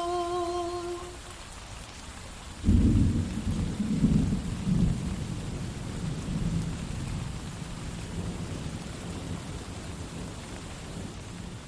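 Steady rain with a sudden thunderclap about two and a half seconds in that rolls on and slowly fades. The last held sung note dies away in the first second.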